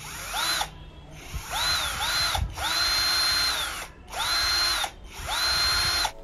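KPT KDD12V 12 V cordless drill-driver running with no load, its motor and gearbox whining in about six short trigger pulls. Each pull spins up with a rising whine and spins down with a falling one. The longest pull lasts a little over a second.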